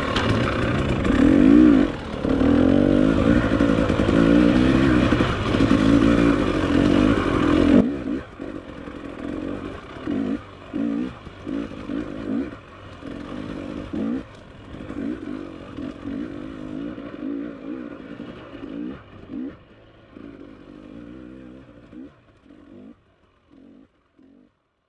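Dirt bike engine running hard, its pitch rising and falling with the throttle. About eight seconds in the sound drops abruptly, and the engine is then heard in short rising and falling bursts that fade away to nothing near the end.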